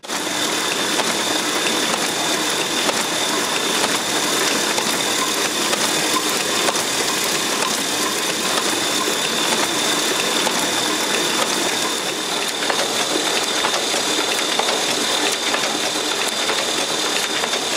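Printing press running a job through its numbering and perforating units: a steady, even mechanical running clatter with a thin high whine held throughout.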